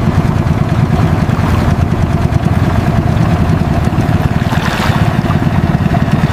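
A small boat's long-tail outboard engine running steadily, a fast low putter.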